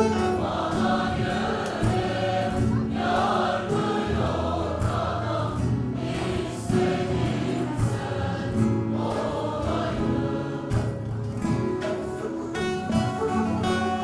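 A choir singing a Turkish folk song (türkü) in held notes with instrumental accompaniment; near the end the voices stop and the instruments play on.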